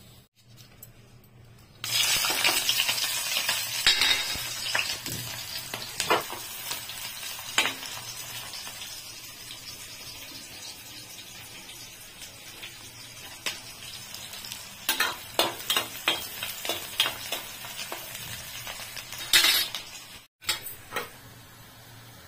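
Chopped onion, garlic and green chillies going into hot oil in an aluminium kadhai: a loud sizzle starts suddenly about two seconds in and settles into steady frying. A steel spoon stirs and clinks against the pan now and then.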